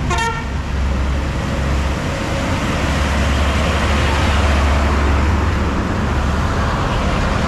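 Heavy diesel trucks passing close on a road: a low engine rumble with tyre noise that swells to its loudest about four seconds in as a Hino truck goes by, with a second dump truck coming up behind it.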